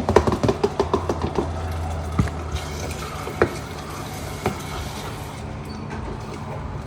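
Light clinks and clatters, like kitchen utensils being handled: a quick run in the first second and a half, then single clinks about 2, 3.5 and 4.5 seconds in, over a low steady hum.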